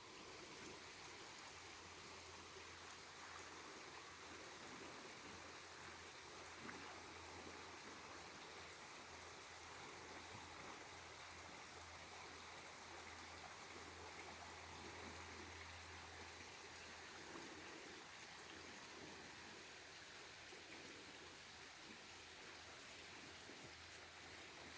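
Faint, steady rush of river water flowing, with a low hum underneath that fades about two-thirds of the way through.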